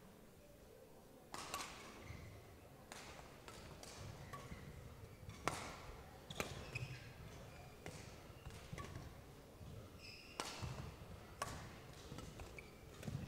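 Badminton rally: a shuttlecock is struck back and forth with rackets, giving sharp hits about a second apart after the serve. Between the hits, players' feet thud and shoes squeak on the court.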